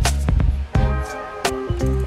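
Background music with a drum beat and bass.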